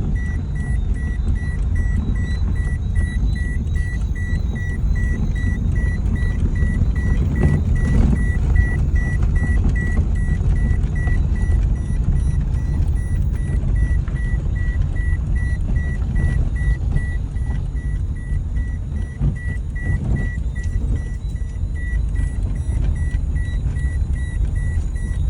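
Low road and engine rumble inside a moving car, with a high electronic beep repeating at an even rhythm.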